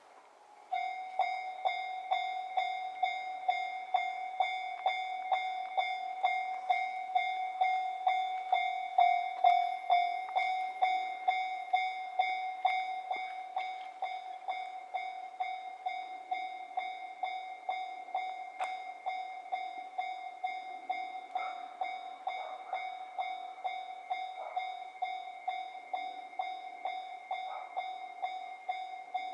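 Japanese railway level-crossing alarm switching on about a second in, then ringing its electronic bell in a steady run of strokes, about two a second. The crossing is warning of an approaching train.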